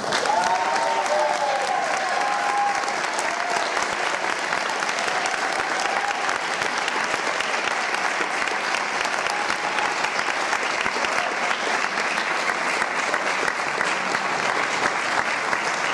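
Audience applause that breaks out suddenly and carries on steadily, with a few voices calling out over it in the first few seconds.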